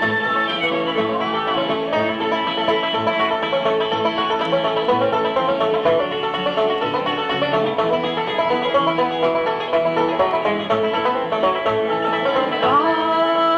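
Bluegrass band playing an instrumental break led by a picked five-string banjo, with acoustic guitar behind it. A few notes slide upward near the end.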